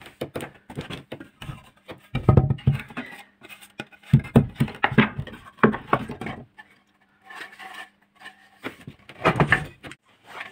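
Wooden boards knocking and scraping against one another as they are shuffled and lifted out of a leaning stack, in several clusters of clunks with short pauses between.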